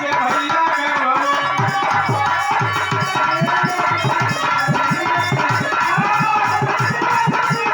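Instrumental interlude in a Bhojpuri birha folk song: a harmonium plays held melody notes over a quick, steady dholak rhythm.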